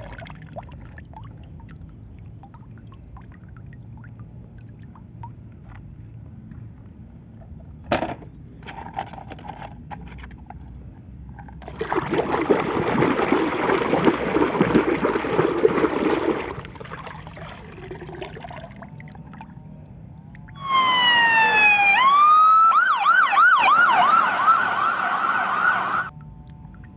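An electronic siren sounds for about five seconds in the second half: first a quick series of falling sweeps, then a fast up-and-down wail, before it cuts off suddenly. Earlier, a rushing, water-like noise lasts about four seconds.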